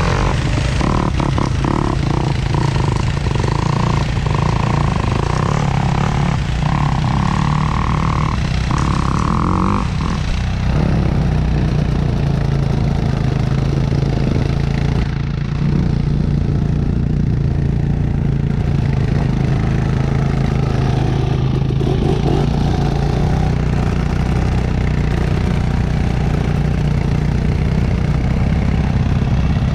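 Vehicle engine running steadily at an even speed, with wind and road noise. A higher whine comes and goes during the first ten seconds.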